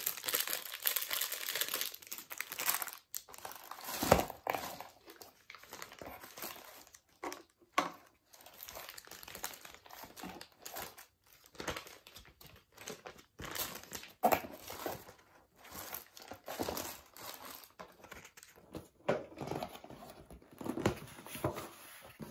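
Crinkling and rustling of plastic wrapping and tissue paper as wrapped clay-modelling tools and a bagged block of modelling clay are handled and unwrapped, in irregular bursts with small clicks and a knock about four seconds in.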